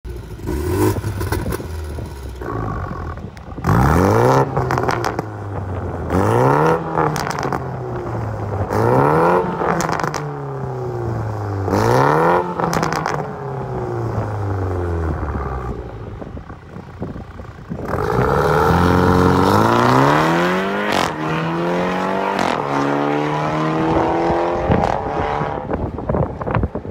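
Toyota GR Supra 2.0's turbocharged B48 inline-four, fitted with a valvetronic exhaust with catless downpipe, idling and being revved in place. Four quick revs that each fall slowly back to idle, then a longer held rev, with the exhaust crackling as the revs drop.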